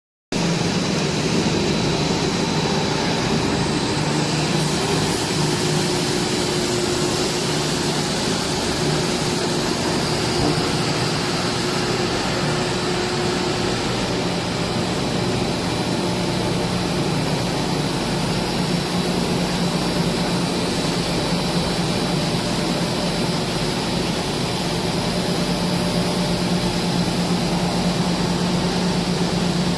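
Steady machine noise of a PP hollow corrugated sheet extrusion line running, with a steady low hum and a thin high whine over it.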